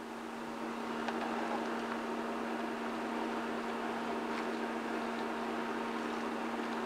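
Warm beef broth and stout trickling from a saucepan into a foil roasting pan around the meat and onions, a soft steady pouring noise over a constant electrical hum.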